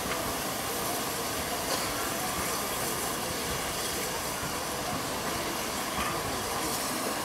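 J15 0-6-0 steam locomotive rolling slowly tender-first, with a steady hiss of steam and a couple of faint clicks from the wheels on the rails.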